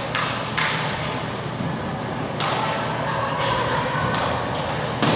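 Sharp clacks of hockey sticks and puck during inline hockey play on a plastic tile rink floor, a handful of separate hits, over the echoing hum of a large rink with faint voices.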